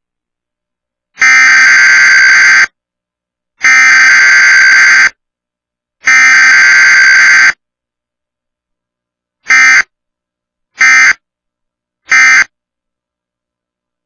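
Emergency Alert System SAME data tones for a Required Weekly Test: three harsh, buzzing bursts of about a second and a half each, then, after a short gap, three short end-of-message bursts. No attention tone or spoken message comes between the header and the end-of-message code.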